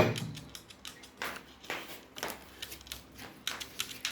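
A pet parrot moving about on a hard surface: irregular light clicks and taps, a few a second, from its claws and beak.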